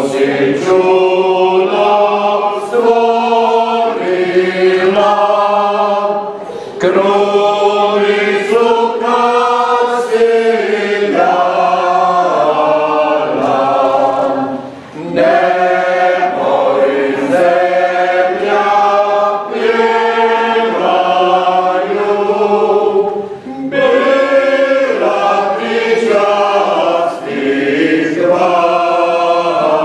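Choir singing a slow hymn in long held phrases, with short pauses between phrases.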